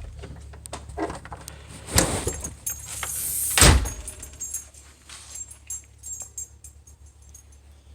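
A door being opened and shut amid light metallic jingling, with a few knocks, the loudest about three and a half seconds in; the jingling fades out toward the end.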